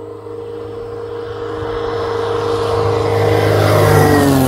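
Zenith STOL CH 701 light bush plane climbing out after a short takeoff, its engine and propeller at full power growing steadily louder as it approaches, then dropping in pitch as it passes overhead near the end.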